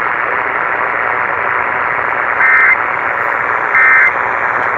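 Two short bursts of Emergency Alert System end-of-message data, a rapid warbling digital tone, about a second apart over steady radio hiss. They mark the end of the alert broadcast.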